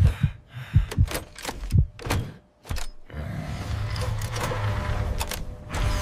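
A run of dull, irregular thuds for the first few seconds, then a steady low rumble from about three seconds in: cartoon sound effects for the runaway bulldozer, its engine still running.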